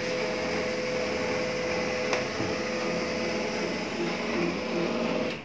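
HP LaserJet M1005 MFP laser printer running its power-on start-up cycle, its internal motors and fan whirring steadily with a constant hum, then stopping abruptly near the end. The printer now starts, after a loose ribbon cable that had kept it from switching on was reconnected.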